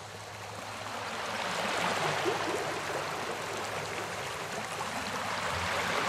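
Small sea waves washing up on a sandy beach: an even hiss of surf that swells over the first two seconds and then holds steady.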